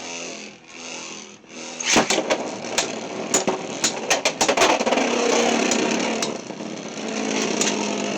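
Beyblade X spinning tops in a plastic stadium: a steady whir, then about two seconds in a loud crack, followed by repeated sharp clacks over the whir as the tops collide.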